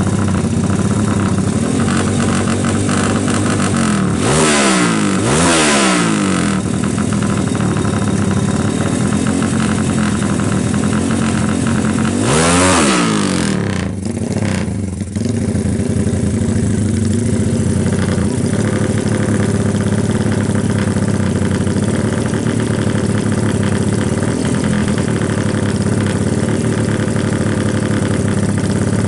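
Honda Tiger drag bike's single-cylinder four-stroke engine, bored up to 273 cc, idling and being revved: two quick blips of the throttle about four and five seconds in, one more about twelve seconds in, then back to a steady idle.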